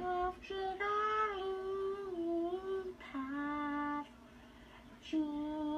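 A young person singing alone with no accompaniment, holding long drawn-out notes. The voice breaks off for about a second roughly four seconds in, then comes back on another held note.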